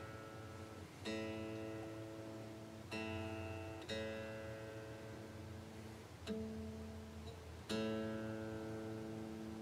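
A single string on a Fender Telecaster plucked five times, each note ringing out and slowly fading, as the string's intonation is checked at the 12th fret.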